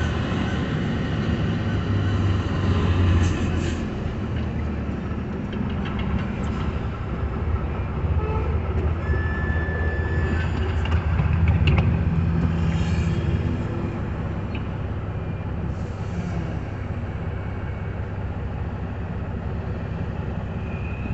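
Heavy trucks' diesel engines running in slow stop-and-go traffic, heard from inside a vehicle cab as a steady low hum. A brief high beep sounds about nine seconds in.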